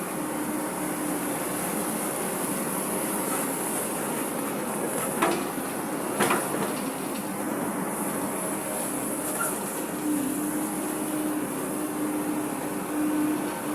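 Excavator running steadily while digging, with two sharp metallic clanks about five and six seconds in.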